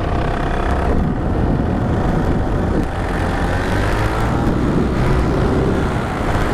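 Paramotor engine running steadily in flight, heard from the pilot's seat, its pitch holding even throughout.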